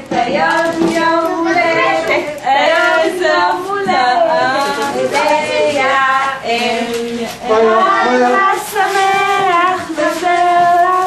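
A group of children and women singing a song together.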